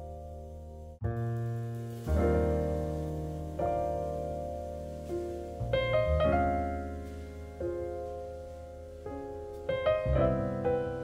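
Relaxing background piano music: soft chords struck every second or two, each left to ring and fade.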